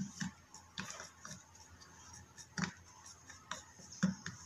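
Fingers kneading and squishing glue-and-borax slime in a small plastic cup, giving about eight soft, scattered clicks and taps with quiet between them.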